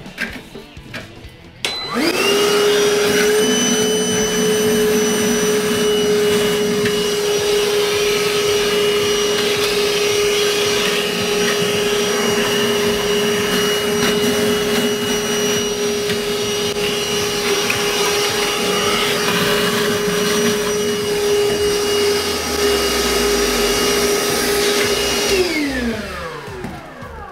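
Small wet vac switched on about two seconds in and running steadily while its hose sucks the remaining water out of a toilet tank, then switched off near the end, its motor winding down with a falling pitch.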